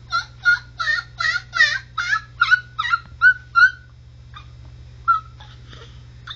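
Baby babbling a quick string of high-pitched repeated "ta" syllables, about three a second, breaking off after about three and a half seconds, with a couple of single syllables later and a new string starting at the very end.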